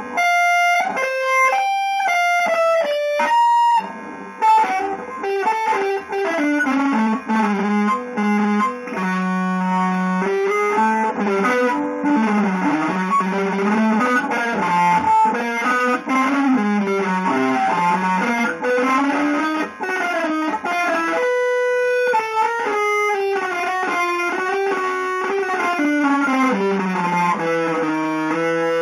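Electric guitar playing solo improvised lines: a few separate ringing notes at the start, then fast, continuous runs of notes, with one held note about two-thirds of the way through.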